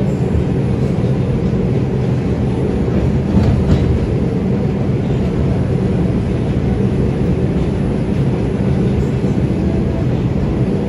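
R142 subway car running along elevated track, heard from inside the car: a steady low rumble of wheels on rail, with a slight swell and a few light clicks about three and a half seconds in.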